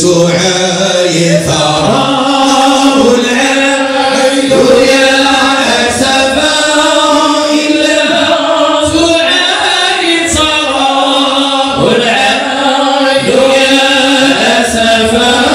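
A group of men's voices chanting Sufi devotional praise of the Prophet (madih) in unison, unaccompanied. The chant moves in long melodic phrases broken by short breath pauses.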